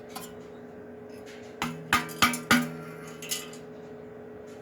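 Metal clanking on the cut-open steel muffler shell: four sharp, ringing knocks in about a second, then a lighter clink.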